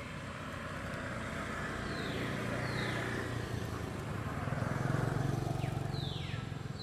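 A motor vehicle passing along the road, its engine growing louder to a peak about five seconds in and then easing off. A few high, falling chirps sound over it.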